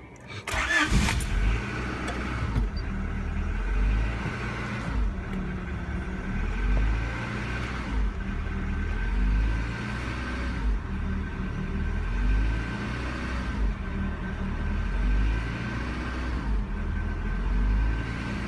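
A 1992 Honda Accord's four-cylinder engine catching about half a second in after a hard start, then idling unevenly with the revs rising and falling every two to three seconds. The owner traces the poor starting to a failed coolant temperature sensor.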